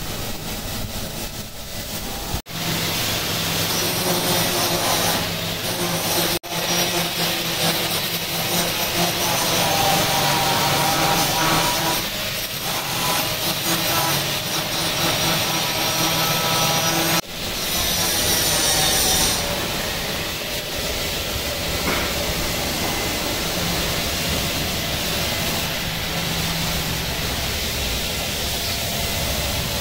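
Electric buffing machine running, its polishing wheel working against a stainless-steel chafing dish. The sound is a steady grinding hiss, broken by abrupt cuts three times.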